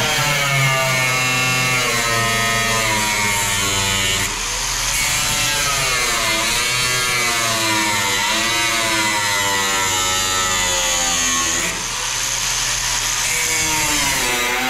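Electric angle grinder cutting into the sheet-steel quarter panel of a car body: a steady motor whine over a hiss of grinding, its pitch sagging and recovering as the wheel bites into the metal and eases off, with two brief lulls.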